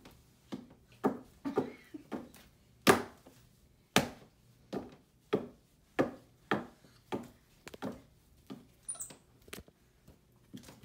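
Hands slapping down on a wooden dresser top as a capuchin monkey pulls a woman's hands, making them work like a puppet's: a run of sharp smacks, roughly two a second and unevenly spaced.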